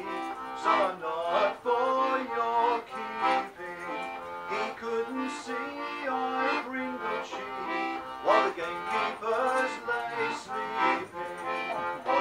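Button accordion playing a folk dance tune on its own: an instrumental break in a sung folk song.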